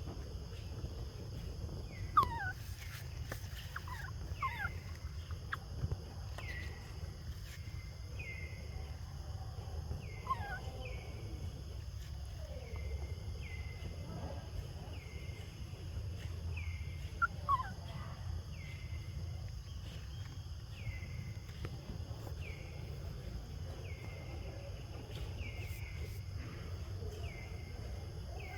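Outdoor animal calls: a few high squeals that slide sharply downward, scattered through the stretch. From about a quarter of the way in, a short, high call repeats steadily about once a second.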